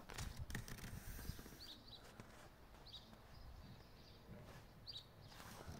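Near silence: faint rustling of handling, with four short high chirps spread through it.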